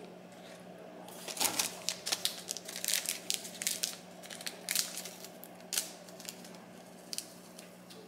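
Small plastic-foil food sachets crinkling in the hands and being torn open: a dense run of sharp crackles starting about a second in and thinning out near the end.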